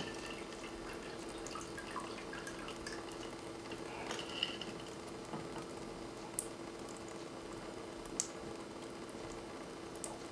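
A faint trickle and drip of a cocktail being strained out of a metal shaker into a martini glass, with a few light clinks.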